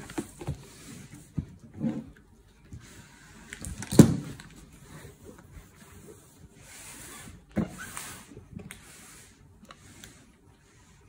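A cloth rubbing over a cardboard box in short wiping strokes, with small knocks and bumps as the box is handled; the loudest is a sharp thump about four seconds in, and another knock comes near eight seconds.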